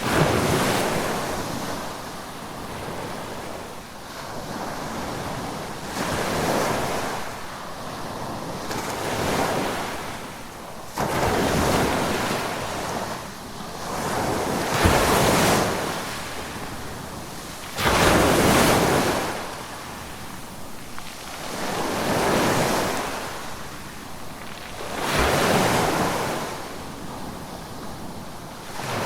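Ocean waves breaking on a shore, the surf surging and ebbing every three to four seconds, some breakers crashing in suddenly.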